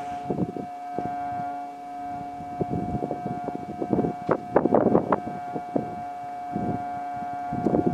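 A ship's horn sounding one long, steady blast, with wind gusting on the microphone over it.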